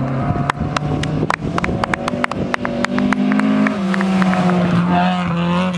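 Classic rally car's engine at high revs on a gravel stage, approaching and passing close by. Its note climbs about two seconds in and drops a step near four seconds in. A rapid series of sharp cracks sounds over it through the first four seconds.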